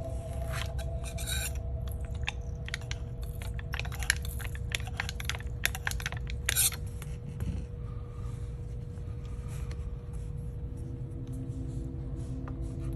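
Irregular scrapes and clicks of a repair tool working at the swollen battery of a MacBook A1708 to pry it out, densest in the first seven seconds, over a steady hum.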